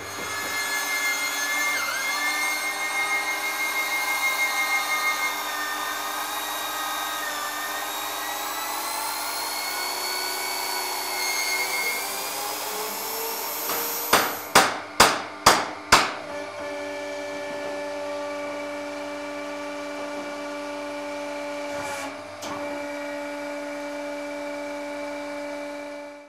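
Electric drill on a sliding rig boring dowel holes down through stacked timber planks, its motor tone dipping and wavering as the bit cuts. About halfway through come five quick sharp knocks, then the drill runs on at a steady pitch.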